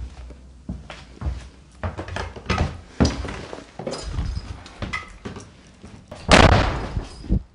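Irregular thumps and knocks of footsteps on a wooden staircase, mixed with close handling noise, and a louder half-second scuff about six seconds in.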